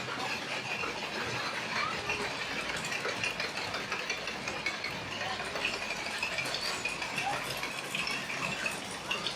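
Theme-park ride machinery running with a steady fast clicking and rattling, like a ratchet.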